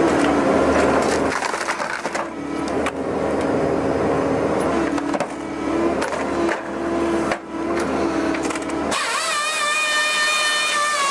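Logs being split and crushed by a hydraulic firewood processor, wood cracking and splintering over the steady hum of the machine. About nine seconds in, the sound changes abruptly to a steady whine at several pitches.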